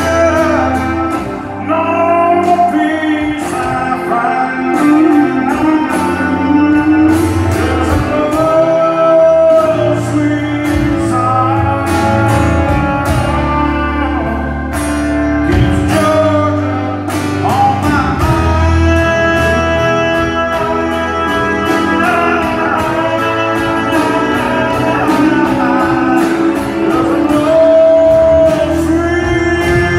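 Live band playing a song: a lead singer holding long notes over guitars and a drum kit with a steady beat, heard from the audience in a large hall.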